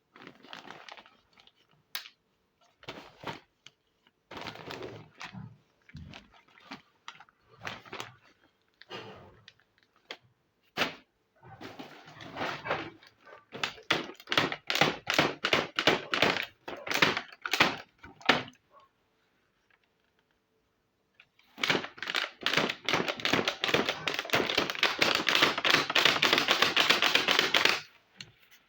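Miniature plastic toy kitchen pieces being handled, with scattered clicks and taps. Midway there is a run of quick, evenly spaced strokes, and after a pause a dense stretch of rapid clicking that stops suddenly near the end.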